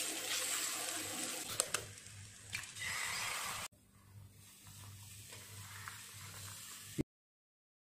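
Food frying in oil in an aluminium pot: a steady sizzle with a few sharp clicks of a steel spoon as a ground coconut and spice mixture is added. After an abrupt cut, a quieter sizzle as chopped flowers drop in, and the sound stops dead near the end.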